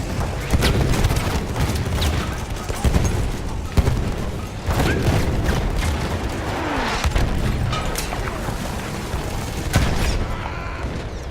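Battle sounds: dense gunfire and explosions throughout, with a falling whistle about six and a half seconds in.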